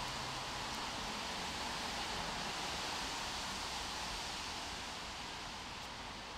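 Steady outdoor background noise: an even hiss with no distinct events, easing a little near the end.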